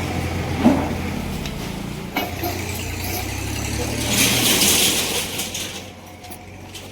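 A steady low machine hum, with a couple of sharp metallic clinks and about a second of loud hissing past the middle; the hum dies away near the end.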